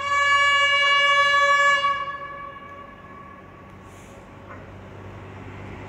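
Horn of an approaching railway special vehicle, one long blast of about two seconds that trails off, followed by the engine hum of the vehicle slowly growing louder near the end.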